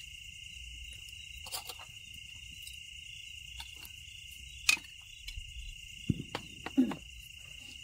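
Crickets and other night insects trilling steadily. Over them come a few sharp clicks and knocks, as from a cooking pot and utensils being handled: one loud click near the middle and a quick cluster of knocks near the end.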